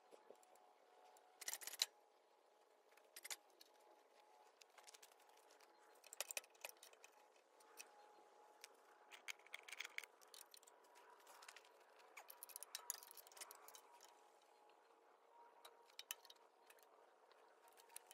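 Faint, scattered metallic clicks and clinks of tools and parts being handled during tractor repair work, over a faint steady hum.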